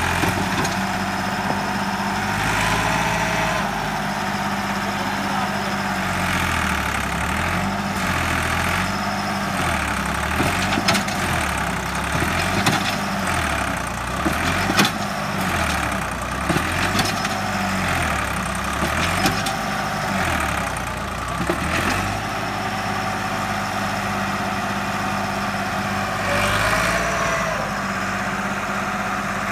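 Massey Ferguson 260 Turbo tractor's diesel engine straining with its rear wheels dug into sand under a loaded trolley. It runs steadily at first, then from about six seconds in the revs rise and fall again and again, roughly every second and a half, for some fifteen seconds, and then it settles back to a steady run.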